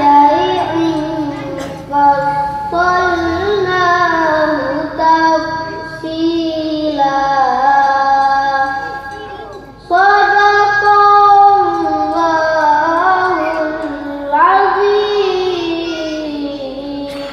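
A child reciting the Qur'an in the melodic tilawah style through a microphone, in long held phrases that rise, fall and ornament, broken by brief pauses for breath.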